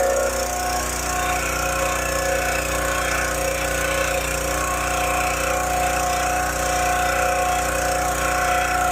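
Drain jetter's motor and high-pressure pump running steadily as it drives its hose through a clogged drain line.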